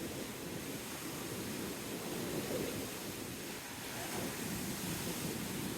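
Steady rushing of wind and surf, with the wind buffeting the microphone.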